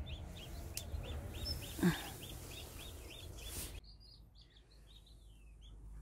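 Newly hatched Cheonggye chicks peeping, about four short high peeps a second, then more scattered peeps after the background noise drops suddenly near the middle. A brief low sound about two seconds in is the loudest moment.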